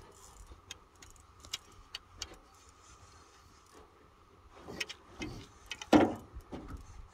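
Scattered light clicks and knocks of fishing tackle and a landing net being handled in a small boat while a hooked fish is played, with a louder knock about six seconds in.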